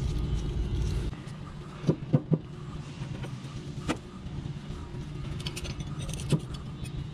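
A steady low mechanical hum, whose deepest part drops away about a second in. Over it come a few sharp metal knocks and clinks of parts and tools being handled: three close together about two seconds in, then single ones near four and six seconds.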